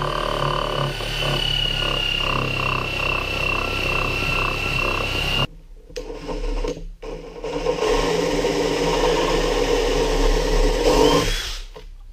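Angle grinder with a sanding disc running on a wooden slab, a steady high whine with a pulsing tone under it, for about five and a half seconds. After a short break, a cordless drill bores a hole into the wood, loudest from about eight to eleven seconds in.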